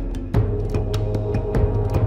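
Dark, tense soundtrack music: a rapid, dense pattern of drum strikes over a sustained low drone and held tones, with a heavy hit about a third of a second in.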